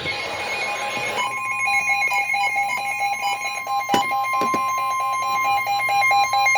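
Weather radio alert: a second of hissing static, then the steady single-pitched warning alarm tone of a NOAA weather radio broadcast, overlaid by a rapid repeating beep, signalling that a warning is about to be read.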